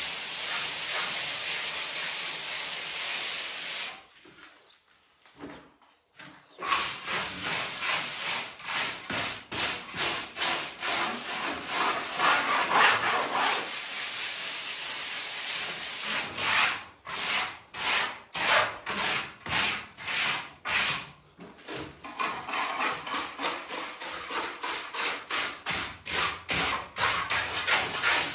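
A plastering float rubbing over a cement-rendered wall in rapid back-and-forth strokes, smoothing the render. It pauses about four seconds in and again briefly twice later on.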